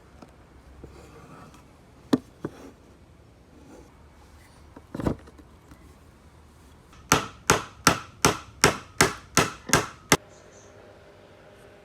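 Wooden tenon being knocked home into its mortise: two sharp knocks, a duller thump, then a run of nine even blows at about three a second.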